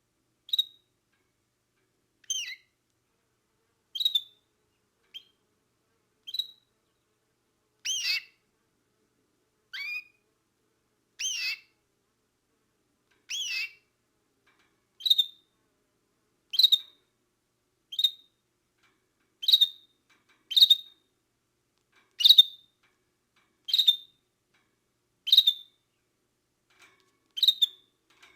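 A canary giving single short chirps, about one every second and a half, each set apart by silence. Some chirps sweep down in pitch; most are brief high tweets, getting louder later on.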